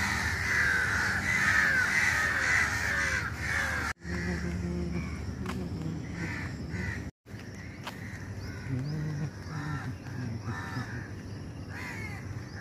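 A dense chorus of birds calling over one another, thinning to scattered calls after the first few seconds; the sound cuts out briefly twice.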